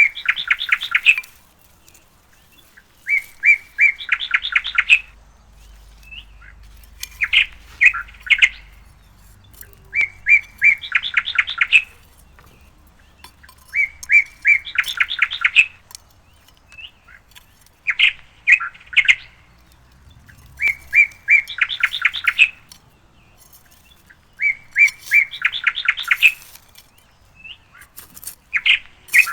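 A songbird singing the same short phrase over and over, about every three and a half seconds: a few clear, evenly pitched notes, then a quick rattling trill.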